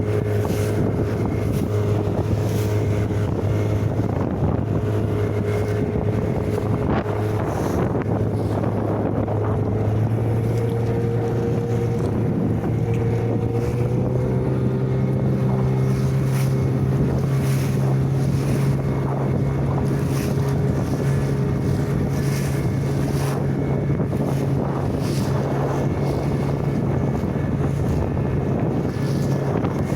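An engine running steadily under wind noise on the microphone, its note rising slightly about halfway through.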